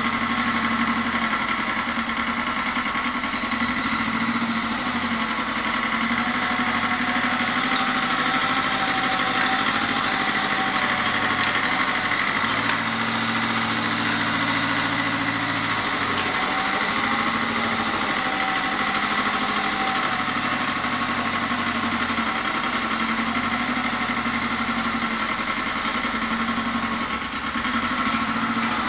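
Satoh Beaver S370 compact tractor's engine running steadily while clearing snow, with steady higher tones above the engine note and a slight change in the low notes midway.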